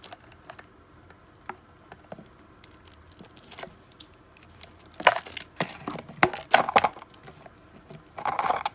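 Costume jewelry clicking and jangling as a plastic-bead necklace is pulled out of a box of tangled jewelry, with a flurry of louder clattering about five seconds in and a short rustle near the end.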